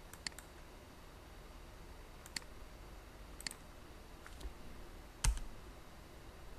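Scattered clicks of a computer mouse and keyboard: about five sharp clicks, some in quick pairs, with the loudest, a dull knock, about five seconds in.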